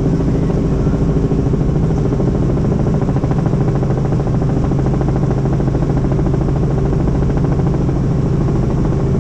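Helicopter running steadily, a constant loud drone of engine and rotor with a fine, even flutter.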